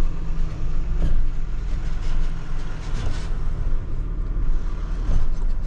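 Flatbed tow truck's engine running with a steady low rumble, heard from inside the cab as it moves through a car park.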